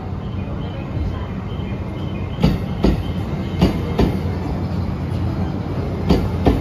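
JR East E653-series electric train rolling past with a steady rumble. Its wheels clack in three pairs of beats, one pair as each bogie crosses a rail joint.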